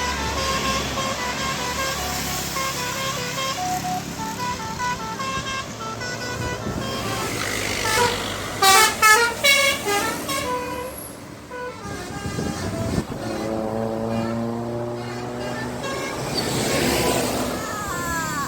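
Indonesian bus 'telolet' horn, a set of musical horns playing a quick stepped tune note by note. About eight seconds in come louder, fuller horn blasts, and then a lower stepped tune follows.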